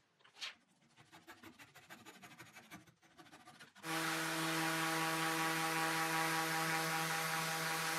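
Faint quick scraping strokes for the first few seconds, then about four seconds in a random orbital sander starts and runs steadily with an even whirring hum, sanding the solid cherry tabletop flush at the breadboard end.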